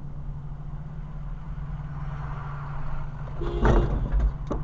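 Car engine running steadily, heard from inside the car, building a little as it pulls away. About three and a half seconds in there is a brief loud burst, then a shorter one just before the end.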